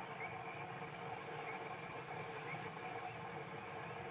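Faint, short, high bird chirps, one about a second in and one near the end, with weaker wavering squeaks, over a steady background hiss.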